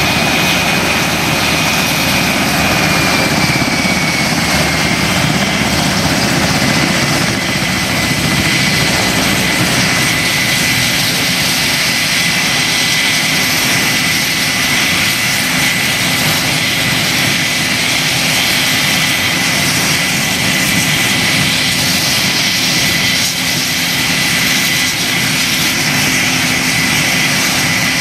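US Navy MH-60S helicopter's twin turboshaft engines and rotors running steadily while it sits on the ground, with a high turbine whine that drops slightly in pitch a few seconds in and then holds.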